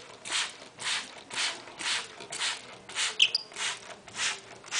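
Hand-held spray bottle squirting water onto a wet parrot in an even rhythm, about two hissing squirts a second. A short high chirp comes a little after three seconds in.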